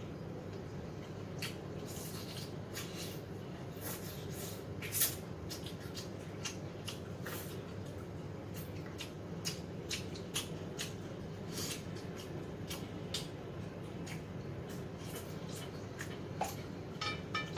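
Eating crispy fried chicken: irregular small crunches, clicks and mouth sounds of chewing over a steady low hum, with one louder crunch about five seconds in.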